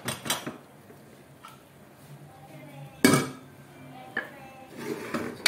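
Aluminium pressure cooker lid clanking against the pot as it is turned and lifted off, with one loud metal clank about three seconds in.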